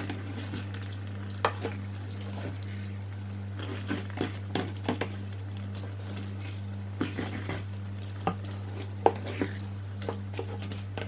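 Tongs and a spatula tossing creamy fettuccine in a stainless steel sauté pan: wet stirring of sauce and pasta, with scattered clicks and knocks of the utensils against the pan, the sharpest about nine seconds in. A steady low hum runs underneath.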